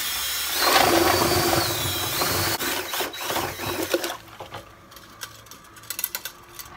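Cordless drill spinning a metal stirring wand in a plastic fermenter bucket of liquid, mixing the batch. Its motor whine dips in pitch twice and stops about two and a half seconds in, followed by irregular knocks and clicks.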